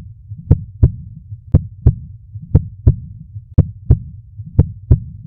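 Heartbeat sound effect: paired low thumps, lub-dub, repeating about once a second over a low hum.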